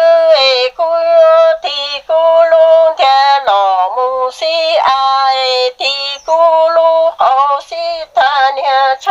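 A solo voice singing a Hmong kwv txhiaj lament: unaccompanied, high and wavering, in short drawn-out phrases with heavy vibrato and brief breaks between them.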